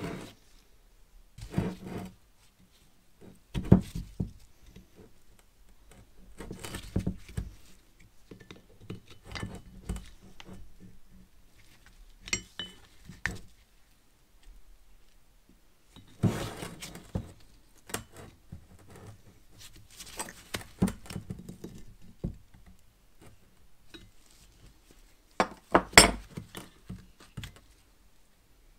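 Scattered metallic knocks, clinks and scraping as a rusty Vauxhall Signum brake caliper is turned over and worked at with a screwdriver in its piston bore, and tools are set down on the bench. The sharpest knocks come about 4 seconds in and near the end.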